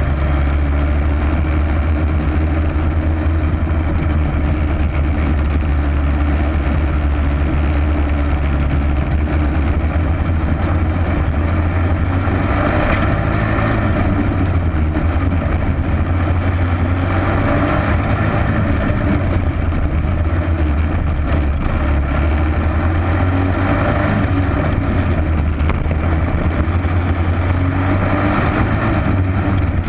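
Dirt-track race car engine running hard under racing load, heard from the onboard camera inside the car. The steady, loud engine note swells brighter every four to six seconds.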